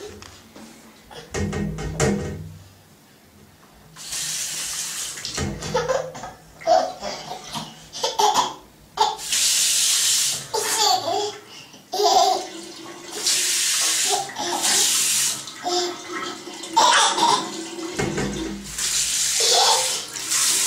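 Water from a bathroom sink tap running and splashing into the basin in repeated spells, starting about four seconds in, with a young child laughing and squealing between them.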